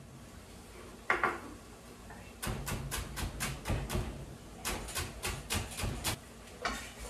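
Chef's knife chopping celery on a wooden cutting board: two runs of quick, even blade strikes, about five a second, each run lasting a second and a half or so. A single short, louder knock comes about a second in, before the chopping starts.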